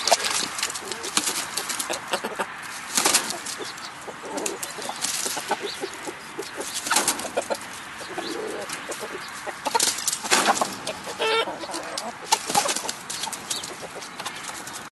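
Chickens flapping their wings and scuffling about in quick, irregular bursts, with a few short clucks.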